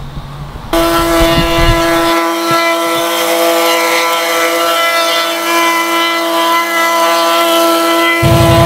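Gas-engine plate compactor running at full throttle, a steady high drone that starts abruptly about a second in, compacting a limestone-screenings patio base.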